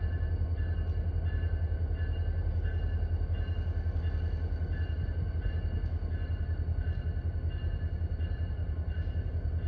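Diesel locomotive engines running in a rail yard: a steady low rumble with a fast, even throb, and faint steady whining tones above it that come and go.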